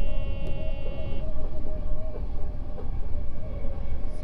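Odakyu 8000 series electric train running: a steady low rumble of the wheels on the track with a steady whine. A brief high ringing tone stops about a second in.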